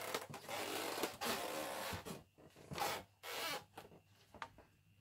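Close rustling and rubbing handling noise on a handheld camera: one long burst for the first two seconds, then two short ones about three seconds in.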